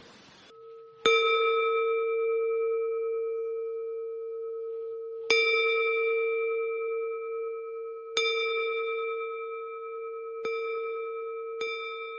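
A meditation singing bowl struck five times, each strike ringing on in one long steady tone, the strikes coming closer together toward the end.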